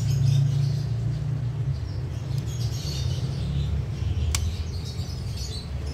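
A steady low hum, with faint high chirps like birds in the background and one sharp click about four seconds in.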